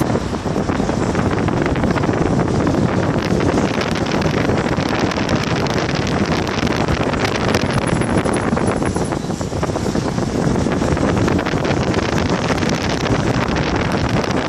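Wind buffeting the microphone over a steady rumble with many small rattling clicks, as from wheels rolling over brick paving while moving.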